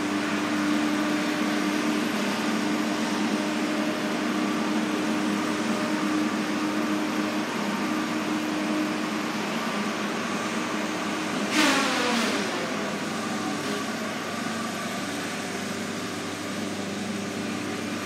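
Diesel engine of heavy logging equipment working in the woods, a steady engine hum with a held tone. About two thirds of the way through there is a sudden louder moment whose pitch falls away over about a second.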